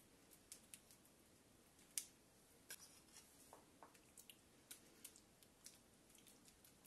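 Near silence, broken by sparse faint clicks and soft wet scrapes of a metal spoon scooping a thick sauce from a ceramic bowl and spreading it over raw fish steaks, with one slightly louder click about two seconds in.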